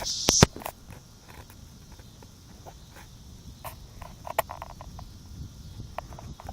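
Steady high chirring of insects outdoors, with a few sharp clicks, the loudest about half a second in.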